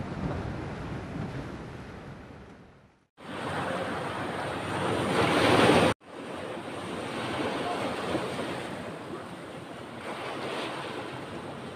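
Ocean surf breaking and washing in over a rocky shore, with wind buffeting the microphone. The sound fades to a moment of silence about three seconds in. A wave then swells loudly and cuts off suddenly near the middle, and the wash of waves goes on after it.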